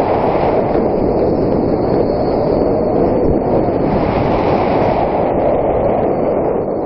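Steady rush of wind over the microphone mixed with the rumble of the zipline trolley's pulleys rolling down the steel cable.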